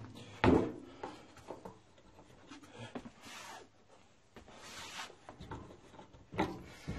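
A large metal tin set down on a workbench with a sharp knock about half a second in, followed by soft rubbing and rustling of a cloth rag against the tin and its cap, with another knock near the end.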